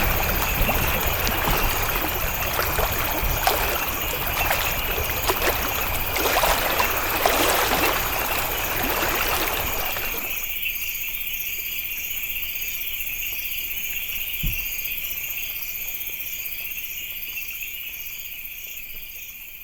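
Water splashing and running, over a steady chorus of chirping insects. About halfway through, the water cuts off abruptly, leaving only the insects trilling, and they fade out near the end.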